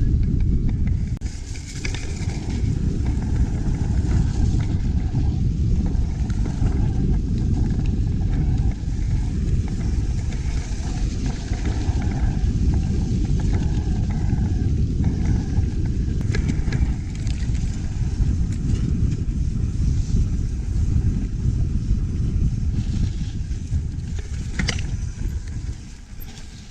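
Wind buffeting an action camera's microphone on a mountain bike ride, a heavy, gusty rumble mixed with the bike's rattles and tyre noise on the trail, with occasional sharp clicks. It eases off near the end.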